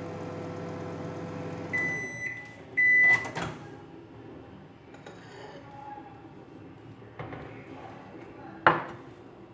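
Microwave oven running with a steady hum, then stopping about two seconds in and beeping to signal the end of the cooking cycle, followed by a click as the door is opened. A sharp knock near the end is the loudest sound.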